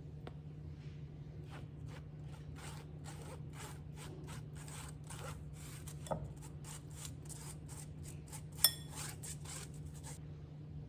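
Silicone spatula rubbing dry flour through a stainless-steel mesh sieve, a scraping stroke about twice a second. Near the end the spatula knocks against the sieve once with a sharp metallic ping, the loudest sound.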